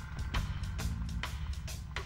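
Background music with a steady beat, about two beats a second, over a low bass line.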